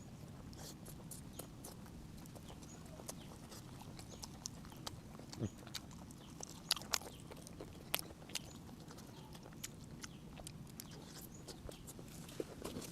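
Close-miked chewing and eating mouth sounds: irregular sharp wet clicks and smacks, a few each second, over a low steady hum.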